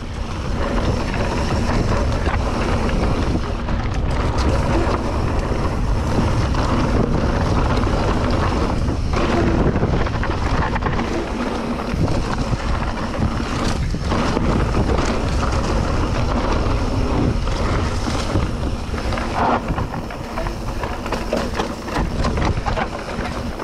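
Wind buffeting the rider-mounted microphone, mixed with a mountain bike's tyres rumbling over a dirt singletrack on a fast, flowing descent.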